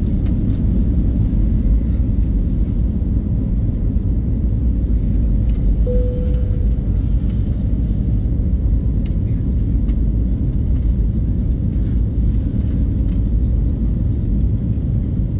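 Steady low rumble inside the cabin of an Airbus A321neo taxiing, from its engines at low power and its wheels rolling on the taxiway. A brief faint tone sounds about six seconds in.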